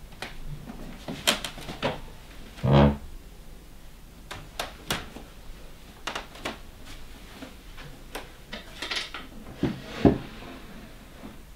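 Background music with plucked string notes over scattered light clicks and knocks. A louder low thump comes about three seconds in, and a sharp knock about ten seconds in.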